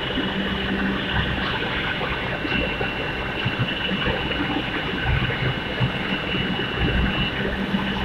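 Steady industrial noise of an induction furnace bay during a molten copper pour: a constant rush with a low hum underneath, and a thin high whine from about one second in until near the end.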